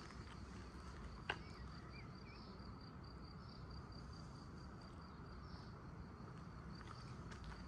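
A cricket trilling steadily in a faint, high, evenly pulsing tone over a low outdoor rumble, with one sharp click a little over a second in.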